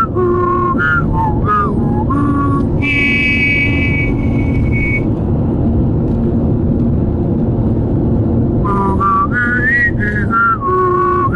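A tune whistled in short, high, gliding notes inside a moving car, over steady road and tyre rumble. About three seconds in a long high note is held for roughly two seconds, then for a few seconds only the road noise is heard before the melody picks up again near the end.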